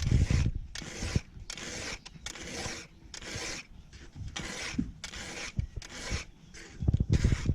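Hand file rasping across a chainsaw chain's cutter teeth in a steady run of push strokes, about one every 0.7 seconds. A few low knocks come near the start and near the end.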